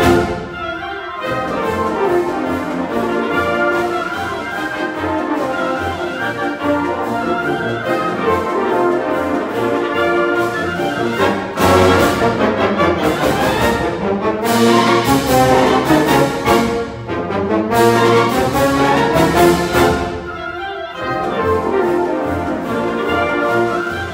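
High school concert band playing: brass, woodwinds and percussion together, with a steady pulse of percussion hits. It dips briefly about a second in and swells to a louder full-band passage about halfway through.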